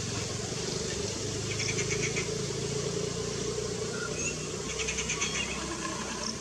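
Steady low rumble of distant motor traffic, with two short spells of rapid, high chirping: about two seconds in and again about five seconds in.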